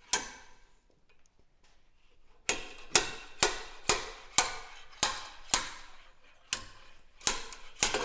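Sharp metallic clinks with a brief ring to each, one near the start and then about ten more at roughly two a second, as the steel rack shaft of a hydraulic power steering rack is worked out of its housing.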